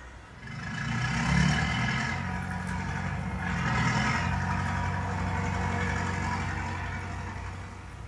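An engine-like rumble with a hiss over it, like traffic going by. It swells up about half a second in, peaks twice and fades away near the end.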